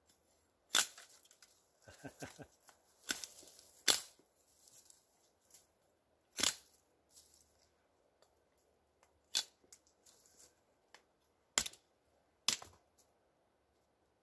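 Becker BK9 chopping knife striking a dead treetop and snapping off dry branches: a series of sharp cracks, a quick cluster about two seconds in and the rest a second or more apart.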